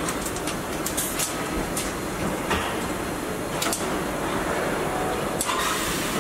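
Car assembly line ambience: a steady factory hum with scattered clicks and knocks of tools and parts, and a short hiss near the end.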